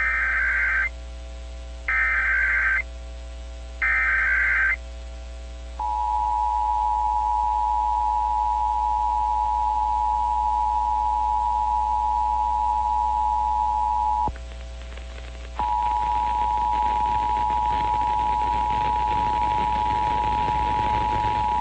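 Emergency Alert System header tones: three short, raspy digital data bursts about a second apart, followed by the EAS two-tone attention signal, a steady harsh dual tone. It holds for about eight seconds, breaks off for about a second, then sounds again, announcing the nationwide test message.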